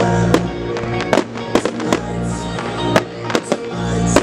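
Fireworks bursting in a display, sharp bangs coming two or three a second, over music with sustained notes.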